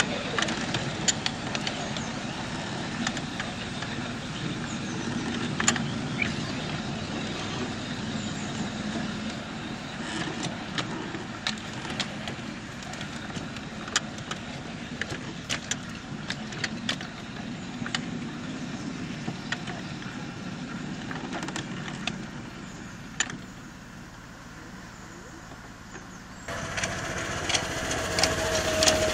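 Miniature railway train running on 7¼-inch gauge track: a steady rumble of wheels on rail, with frequent sharp clicks and rattles. Near the end it suddenly gets louder, with the steady hum of the miniature locomotive's small engine.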